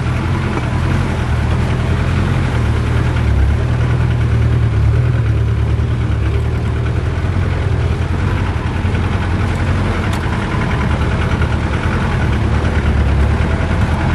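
Off-road 4x4's engine running steadily, a low even drone.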